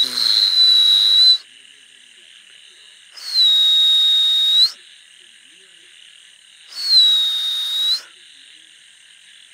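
Three long, loud whistles, each starting a little higher, then settling on one steady pitch, over a steady chorus of frogs and insects in a night paddy field.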